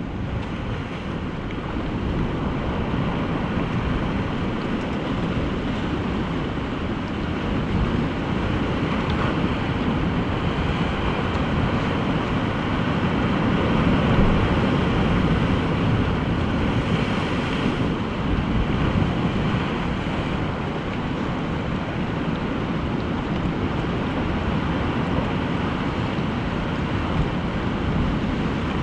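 Wind buffeting the microphone over the steady wash of ocean surf breaking on rocks.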